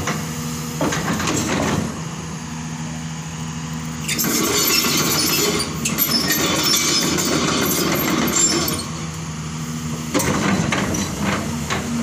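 Doosan hydraulic excavator's diesel engine running steadily as the boom and bucket are worked. For about five seconds in the middle, a louder, rougher hissing noise rises over the engine note.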